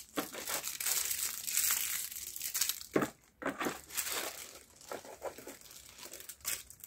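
Plastic packaging crinkling and rustling as items are handled in and pulled from a cardboard box. The rustling is dense for the first few seconds, with a few sharper crackles about three seconds in, then lighter, intermittent crinkles.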